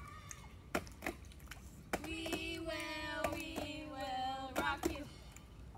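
A girl's voice holds one long sung note for about three seconds, its pitch slowly falling, after a few sharp slaps or taps of hands.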